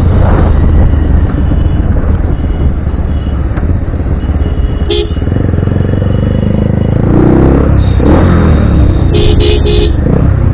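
Single-cylinder engine of a Pulsar motorcycle rebuilt to 220 spec, running with an SC Project aftermarket exhaust while riding. A vehicle horn beeps in short bursts about five seconds in and again near the end.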